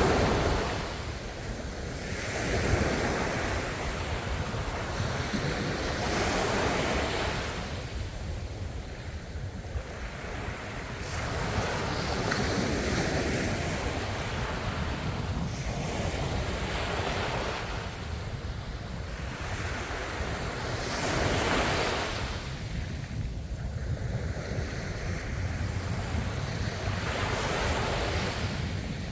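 Ocean waves breaking and washing on the shore, the surf swelling and falling back every few seconds, with a steady low rumble of wind on the microphone underneath.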